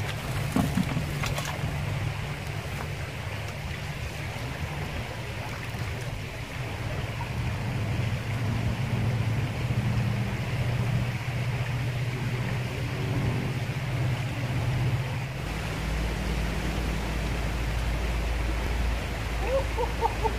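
Shallow river water running over rocks, a steady rush, with a deeper low rumble joining about fifteen seconds in.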